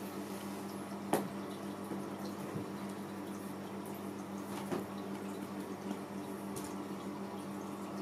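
A steady electrical hum with a faint watery trickle, broken by a few soft knocks about a second in, near five seconds and near seven seconds.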